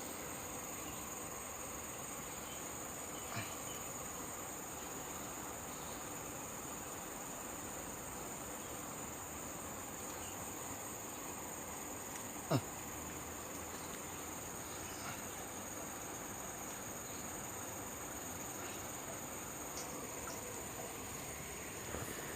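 Insects chirring steadily in a high, even drone, with one sharp click about twelve seconds in.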